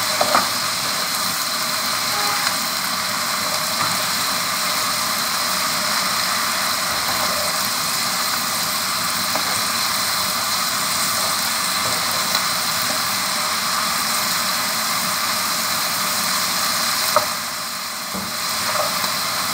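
Onion flower stalks, potato and prawns frying in a wok with a steady sizzling hiss, with a few light knocks of a wooden spatula. The hiss dips briefly near the end.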